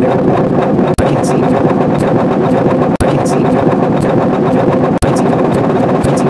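A short sound clip, stacked on itself over a thousand times, reduced to a loud, distorted, dense roar with nothing recognisable left. It plays in two-second loops with a brief gap between each, three times.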